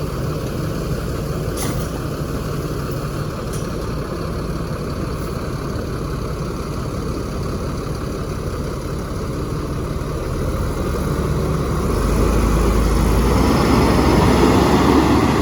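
Steady low engine hum of road traffic, then a large vehicle approaching and passing close by, growing louder from about two-thirds of the way in and peaking near the end.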